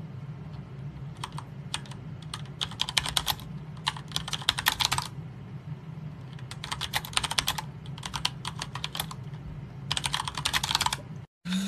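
Typing on a computer keyboard: about six short bursts of quick key clicks, with a steady low hum underneath.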